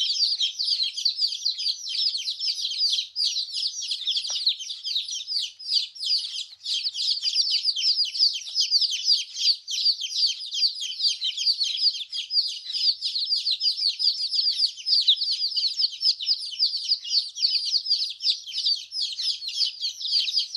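A brood of domestic chicks peeping continuously, many short high-pitched calls overlapping without a break.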